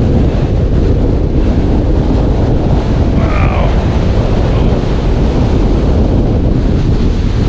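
Strong gusty wind buffeting the microphone: a loud, steady, low rumble.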